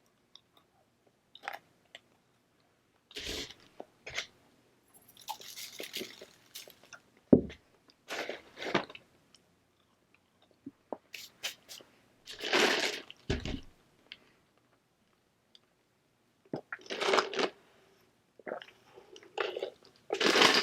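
Close-miked eating sounds: irregular bouts of crunching and chewing, a second or two apart.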